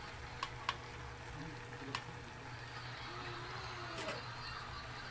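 Chicken and papaya sautéing in a pot, a steady faint sizzle, with a few sharp clicks scattered through it.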